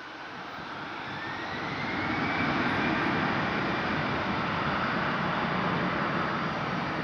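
Airbus A320 jet engines spooling up for the takeoff roll: a whine rises in pitch and the roar grows louder over the first two seconds or so, then holds steady at takeoff thrust.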